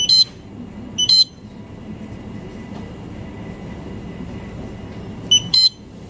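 Short electronic beeps from checkout-counter equipment, each a quick cluster of high chirps. One comes right at the start, one about a second in and another pair near the end, over a steady low hum.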